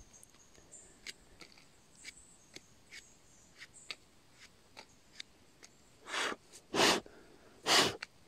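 Pocket knife slicing through a bolete's stem in a run of small, crisp clicks, followed near the end by three short, loud breaths close to the microphone.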